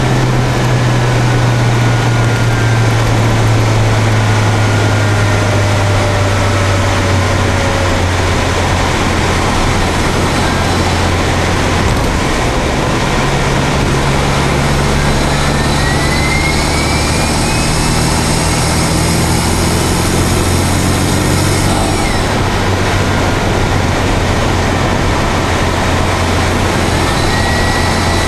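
Daihatsu Copen's turbocharged 660 cc engine heard through its intake, from a microphone on the stock air cleaner box while the car accelerates: a steady, loud low drone with a rushing hiss over it. A thin whistle rises in pitch twice, about halfway through and again near the end.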